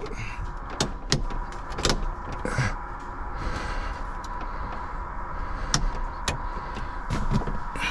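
Dashboard toggle switches on a 1968 Chevelle clicking as they are flipped, several separate sharp clicks, over a steady hum.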